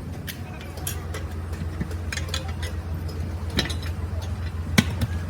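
A steady low hum with scattered light clicks and knocks, and one sharper knock near the end.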